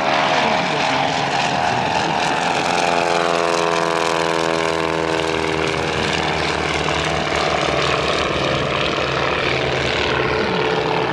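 Propeller engines of World War I-style replica fighter planes, a triplane and a biplane, running as they fly low. One passes close, its engine note falling in pitch between about two and six seconds in.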